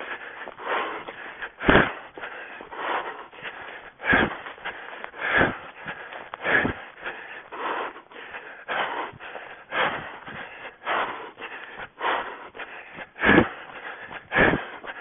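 A runner breathing hard while running, in rhythmic noisy puffs about every half second, with a few heavier thumps mixed in.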